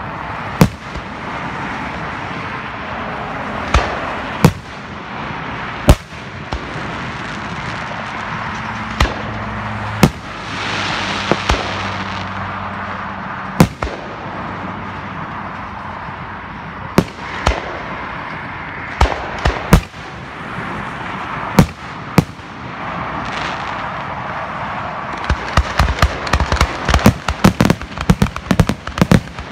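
Aerial firework shells bursting, sharp bangs a second or two apart over steady background noise, building near the end into a rapid barrage of many quick bangs and crackles.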